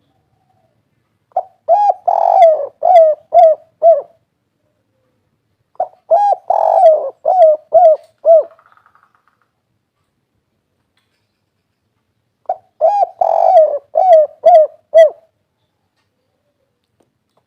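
Spotted dove (derkuku/tekukur) cooing in three separate phrases. Each phrase opens with a short note and a longer, fuller coo, then ends in a run of about three short clipped 'kuk' notes: the 'kuk 3' song type.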